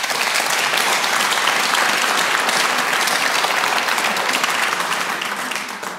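Studio audience applauding, tapering off near the end.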